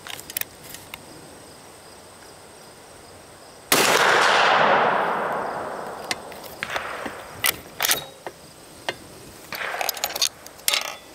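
A single shot from a Savage 220 20-gauge bolt-action slug gun about four seconds in: a sudden loud report that rings on and fades over two to three seconds. Several sharp clicks follow later.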